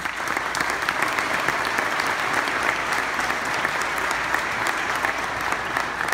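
Audience applauding: dense, steady clapping that breaks out right at the end of a speech.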